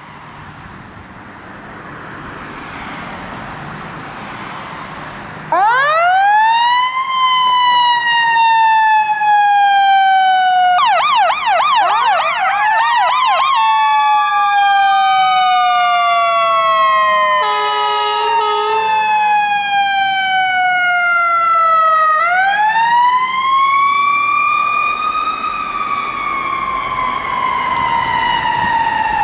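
Emergency sirens of a fire engine and an ambulance setting off on a run. The sirens start about five seconds in with a rising wail that slowly falls, then a few seconds of fast yelp, a short horn blast about two-thirds through, and the wail rising and falling again. Passing car traffic is heard before the sirens start.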